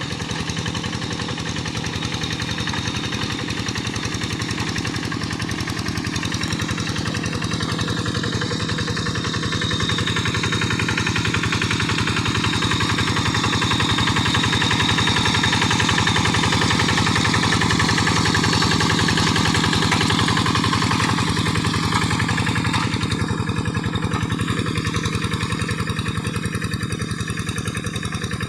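Quick G1000 hand tractor's engine running steadily while harrowing muddy paddy soil, with a rapid even chugging that grows a little louder through the middle.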